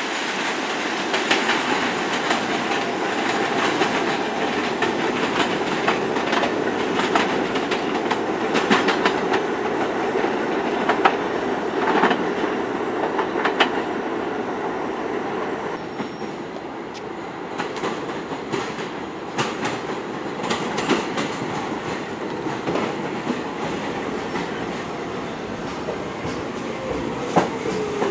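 New York City subway train of R68-series cars rolling slowly through the track switches, its wheels clacking over rail joints and frogs in an uneven run of clicks and knocks. Near the end a falling whine comes in as an R46 train slows into the platform.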